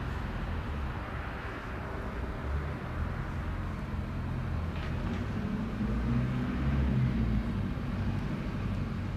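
Steady outdoor rumble of distant traffic around a railway station, with uneven low buffeting of wind on the microphone.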